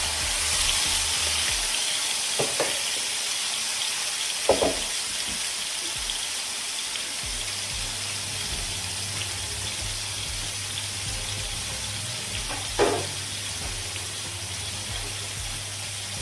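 A marinated beef roast joint searing in a hot frying pan: a steady sizzle that eases slightly over time. A few short knocks come through it, the loudest at about four and a half seconds and near thirteen seconds.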